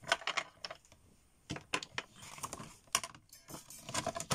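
Irregular light clicks and taps of a plastic Fiskars paper trimmer and cardstock being handled and shifted on a cutting mat, in short clusters with brief pauses.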